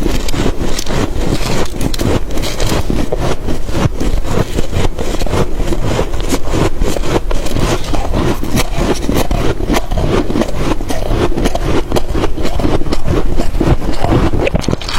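Close-miked chewing of freezer frost: dense, rapid, irregular crunches running without a break.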